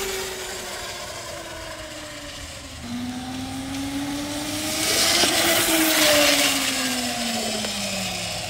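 Electric motorcycle (a Honda CB750 converted to electric) riding past: its motor and controller whine glides down, climbs again from about three seconds in as the bike picks up speed, then falls away. Chain and tyre noise is loudest as it goes by, around five to six seconds in.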